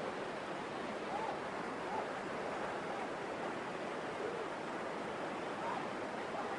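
Rushing river rapids: a steady roar of whitewater with no change in level.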